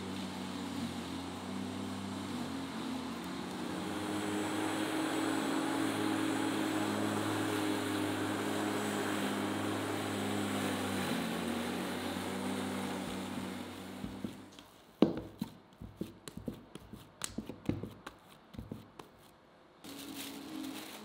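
A machine running with a steady hum, stopping about fourteen seconds in. Then a run of sharp knocks and clicks, and the hum starts again near the end.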